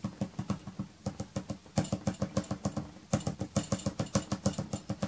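Soft pastel stick dabbed quickly against pastel paper in a run of light taps, several a second, with two brief pauses.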